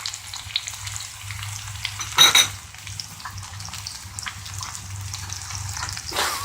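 Aromatics sizzling and crackling in hot oil in a wok as their flavour is drawn into the oil, with a brief louder burst about two seconds in and another near the end, over a low steady hum.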